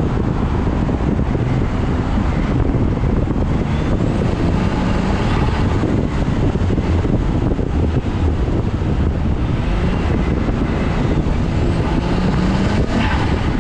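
Car engine heard from inside the cabin, driven hard through an autocross cone course, its pitch rising and falling as the driver accelerates and lifts, over steady road and wind noise.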